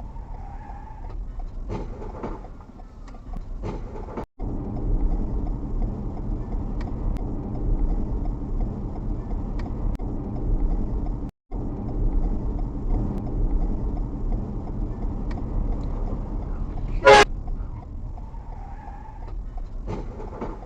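Steady low rumbling noise that cuts out abruptly twice, with one short, loud horn toot about 17 seconds in, of the kind dubbed over a censored word.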